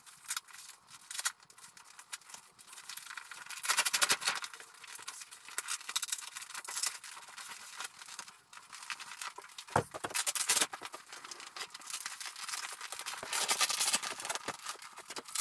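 Vinyl tractor-cab cover rustling as it is worked over the frame, with rasping rips of Velcro strips being pulled apart and pressed together: one about four seconds in, another around ten seconds, and more near the end. A single knock comes just before the ten-second rip.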